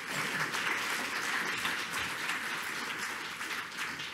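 Audience applauding: many hands clapping in a dense patter that eases off near the end.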